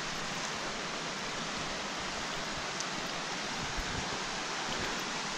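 Steady rushing of a river running beside the path.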